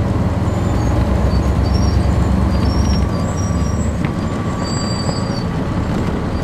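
A 1996 Nova Bus RTS transit bus with a Cummins C8.3 diesel engine and ZF Ecomat transmission, heard from inside the passenger cabin while in service: a steady low engine drone that gets slightly quieter about halfway through, with short faint high-pitched squeaks over it.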